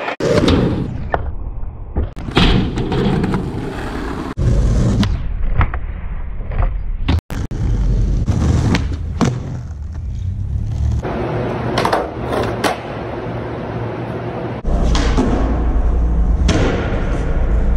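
Skateboard wheels rolling on pavement, with repeated sharp clacks and thuds as the tail pops and the board lands during flat-ground tricks. The sound shifts abruptly at several cuts between clips.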